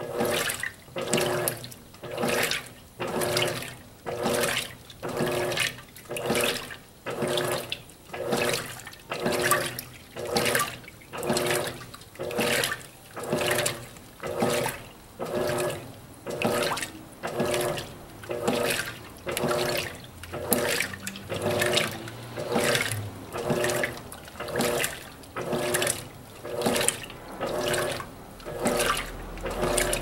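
Electrolux LAC12 top-load washing machine agitating on its Silent Cycle function: water and clothes slosh in the tub in an even rhythm of about one stroke a second, the strokes slower and more widely spaced than normal agitation.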